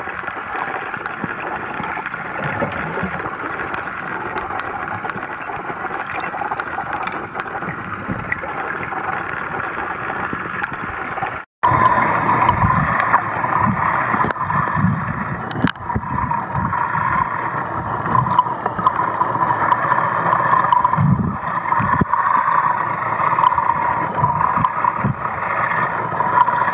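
Muffled underwater water noise picked up by a camera in its waterproof housing: a steady wash with gurgling and sloshing. It cuts off abruptly about eleven seconds in, and a louder stretch follows with low, irregular sloshing thumps.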